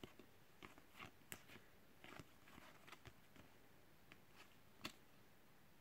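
Faint, scattered flicks and rustles of glossy trading cards being slid apart and shuffled through by hand.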